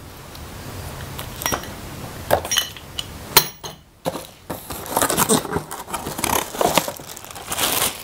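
Plastic wrapping crinkling and cardboard packaging rustling as parts are handled and lifted out of a box, with scattered knocks and clicks. The crinkling grows denser about halfway through.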